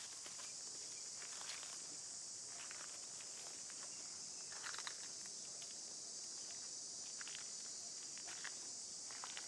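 Steady high-pitched drone of insects, with scattered light crackles and rustles of footsteps on dry leaves and dirt.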